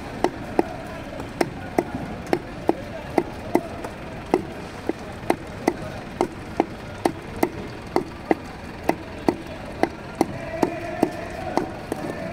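Fish being cut with a knife on a wooden chopping block: a fast, steady run of sharp chopping strikes, about two to three a second.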